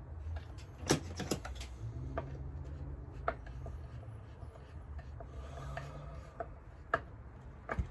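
Chainsaw parts being handled and pressed together by hand: rubbing with a few sharp clicks and knocks, the clearest about a second in, around three seconds and near the end, over a steady low hum.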